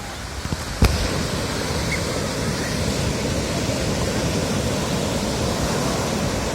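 Ocean surf washing on the shore, a loud steady rush. A single sharp knock comes about a second in, after which the rush grows louder.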